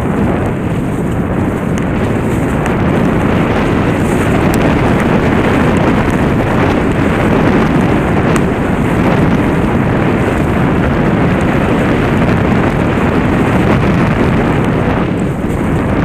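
Loud, steady rush of wind buffeting a helmet-mounted camera's microphone as a skier descends, mixed with skis running over choppy snow.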